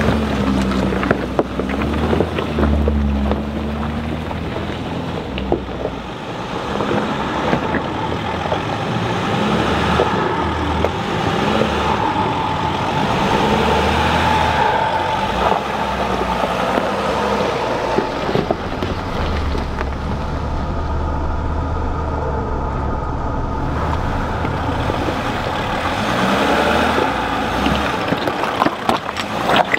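Mercedes Sprinter 4x4 van crawling slowly over rocks. The engine note rises and falls, and there are occasional knocks.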